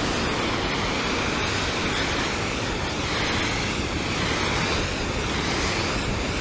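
Steady rushing of water pouring over a canal spillway.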